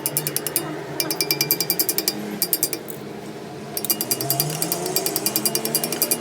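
Rapid mechanical clicking, about a dozen clicks a second, from a machine at work in a metal workshop, over a low hum. The clicking stops briefly near the first second and again for about a second in the middle.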